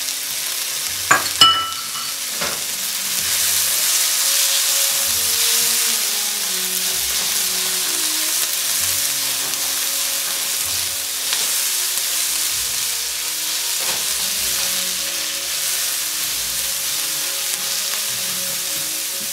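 Sliced onion with chopped garlic and ginger sizzling steadily in hot oil in a wok as they soften and start to colour, stirred with a slotted spatula. A few sharp clicks in the first few seconds.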